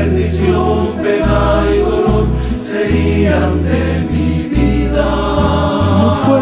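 A rondalla, a Mexican ensemble of guitars with a deep bass line, playing a slow Christian ballad while a group of voices sings in harmony.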